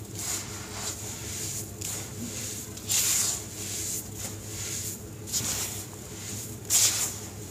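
Hands squeezing and crumbling a lumpy sand-cement mix in a bowl: gritty crunching and rustling as clumps break and fall, with louder surges about three seconds in and near the end.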